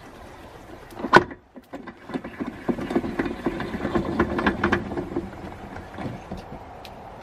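Homemade keg furnace's burner running hot, a rough rumble with crackling that swells for a few seconds in the middle. A sharp knock comes about a second in.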